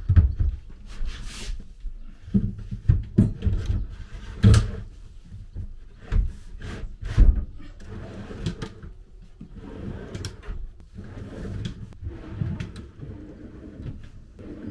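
OSB drawer boxes being fitted onto metal drawer slides and run in and out. Repeated knocks and clunks come as the boxes engage the runners, then the softer rolling of the slides as the drawers are opened and closed to test that they slide properly.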